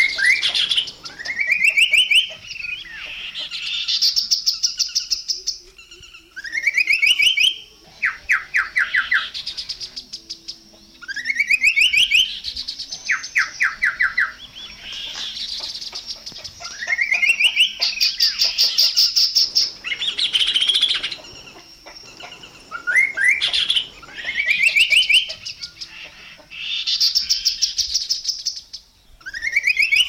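Chestnut-capped babbler singing in a long series of phrases. Each phrase is a rising slurred note that runs into a fast rattle of short notes, with higher buzzy notes between them, and a new phrase comes every couple of seconds.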